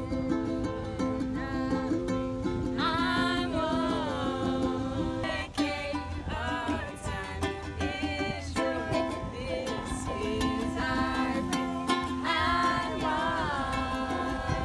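A song led by a strummed ukulele, with a singing voice coming in twice.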